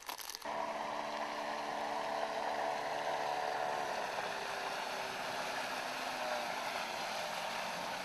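Yamaha outboard motor running steadily as it drives a long wooden riverboat along, with the rush of water along the hull. It starts about half a second in.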